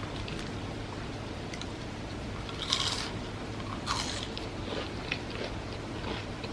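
Two loud crunching bites into crispy fried food, about three seconds in and a second later, followed by softer chewing crackles.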